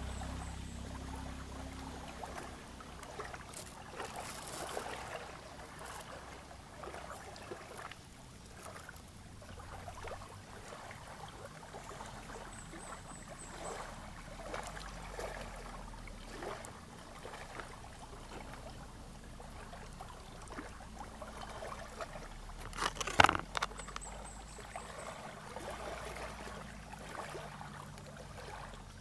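Small waves lapping at a lakeshore, with faint clicks and rustles of close handling and one sharp knock about three quarters of the way through.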